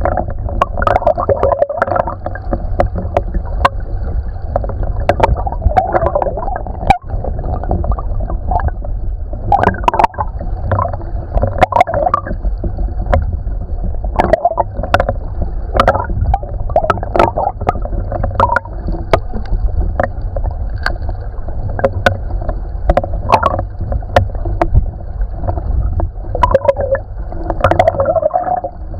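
Shallow creek water flowing and gurgling, heard muffled from underwater, with a constant low rumble. Frequent sharp clicks come at irregular intervals throughout.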